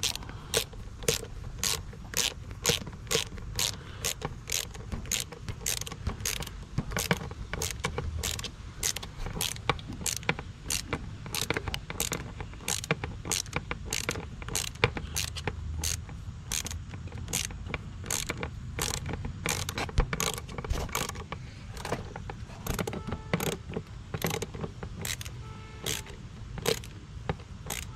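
Ratchet wrench with a 10 mm socket clicking steadily, about two to three clicks a second, as it turns the carburetor mounting nut on a small quad. The nut keeps turning without snugging up, which raises the suspicion of a stripped thread.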